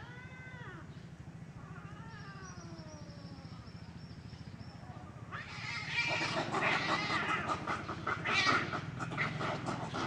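Two cats in a standoff: drawn-out, wavering yowls, then a loud, ragged burst of fight screeching about five seconds in as they grapple.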